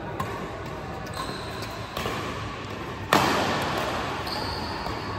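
Badminton rally: rackets striking a shuttlecock in a series of sharp hits, with a much harder, louder hit about three seconds in that echoes through the hall.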